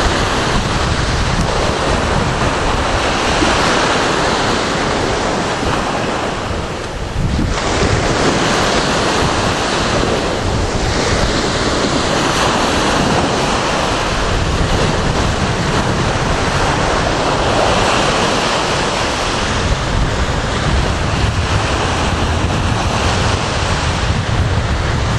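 Small sea waves breaking and washing up on a sandy beach, with wind buffeting the microphone as a steady low rumble. There is a brief lull about seven seconds in.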